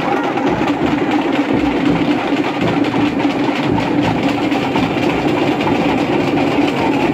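Loud, steady hubbub of a packed festival crowd, with low thumps repeating through it.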